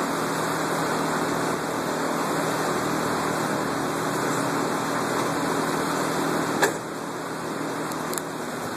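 1999 Pontiac Trans Am's LS1 V8 idling steadily on a chassis dyno under a steady fan-like whir. A single sharp knock comes about two-thirds of the way through, after which the sound is a little quieter.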